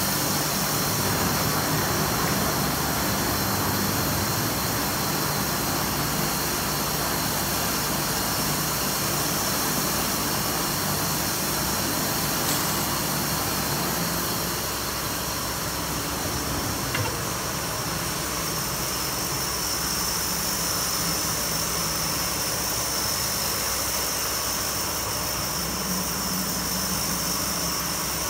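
Industrial foam-cutting machine running steadily, a continuous mechanical hum with hiss that eases a little quieter about halfway through.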